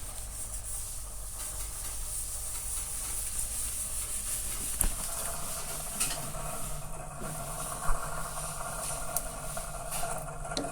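Fukushima YRW-180RM2 commercial under-counter refrigerator running, with a steady hum and whir from its interior fan; the fan noise is plainly audible. A higher-pitched whir joins about halfway through, and there are a few sharp clicks.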